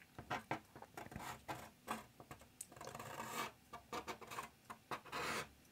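Brush pen scratching across paper in a run of quick short strokes, with two longer drawn-out strokes about three seconds in and near the end, as the outline of a head of hair is inked.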